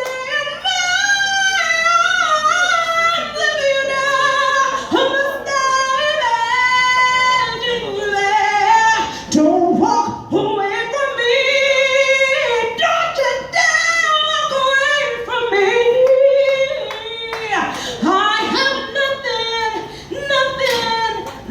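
A woman singing solo with little or no accompaniment: long held notes that waver and bend, and runs that glide up and down in pitch.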